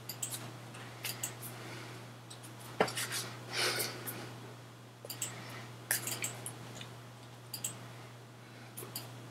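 Hands slapping, brushing and tapping against each other and against the shirt during sign language: scattered sharp clicks and short rustles, the sharpest about three seconds in. A steady low hum sits underneath.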